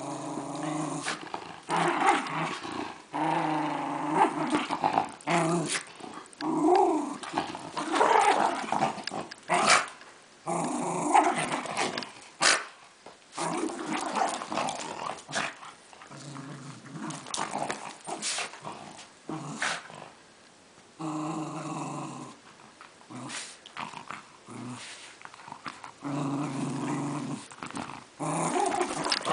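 Welsh terrier growling in repeated bouts of a second to several seconds while play-attacking a plush toy, with short sharp knocks between and over the growls. It is play growling: the dog is rough with the toy but gentle.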